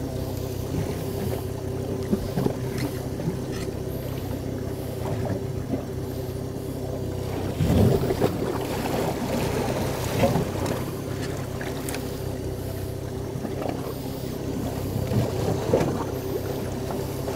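A boat's engine running with a steady low hum, briefly louder about eight and ten seconds in.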